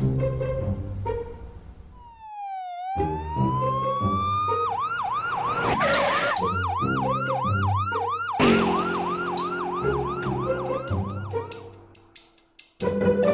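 Ambulance siren starting about two seconds in with one slow wail that dips and rises, then switching to a fast yelp of about three sweeps a second before stopping near the end. It plays over orchestral background music.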